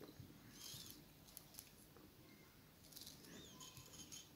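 Near silence: faint room tone, with a few soft small clicks and two faint high chirping notes.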